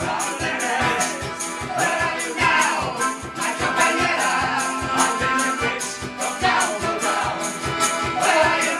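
Live acoustic folk-punk band: an acoustic guitar strummed hard in a quick, steady rhythm and an accordion, with a man and a woman singing into microphones.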